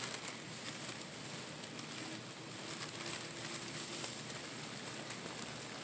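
Crumpled packing paper rustling and crinkling as hands unwrap it, a continuous run of small soft crackles.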